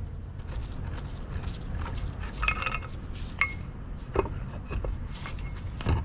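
Light metal clinks, taps and scrapes of valve hardware and bolts being handled and set down, with a couple of brief metallic rings a little past the middle, over a low steady hum.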